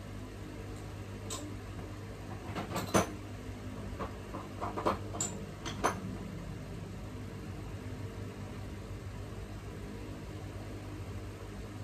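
A few light clicks and knocks from hands working on the TV's parts and screws, bunched in the first half, over a steady low hum.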